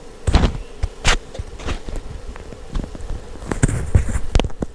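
Handling a matchbox: the box is picked up, slid open and a match pulled out, heard as a series of clicks, taps and rustles, with a brief scratchy hiss near the end.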